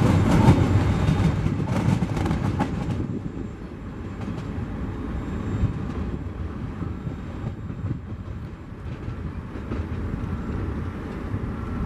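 Empty log wagons of a freight train rolling past on the rails, with sharp wheel clicks for about the first three seconds as the last wagon goes by, then a low rumble that fades as the train draws away.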